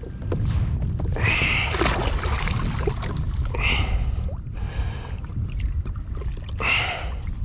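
Water splashing and sloshing at a kayak's side, in three short splashes, over a steady low rumble of wind on the microphone.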